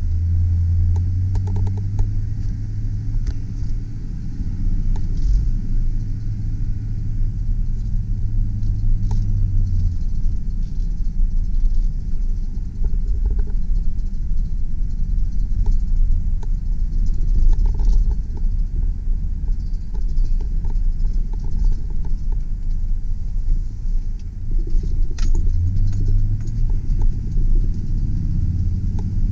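2001 Chevrolet Silverado 2500 work truck being driven, with its engine running under a constant low road rumble. A steady engine drone is strong at first, eases off about a third of the way in, and comes back near the end. Light clicks and rattles are scattered throughout.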